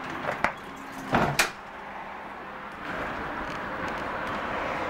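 Doors of a Siemens-Duewag U2 light rail car closing: a couple of light knocks, then a louder double thump about a second in. From about three seconds in, the steady running noise of the car getting under way.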